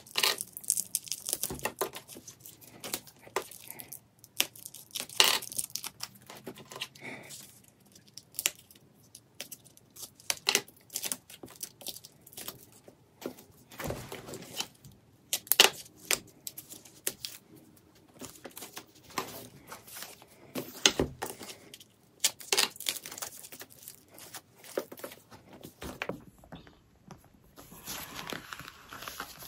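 Protective wrapping being peeled and torn off a new leather handbag and its hardware: many short, irregular crinkles and rips, softer near the end.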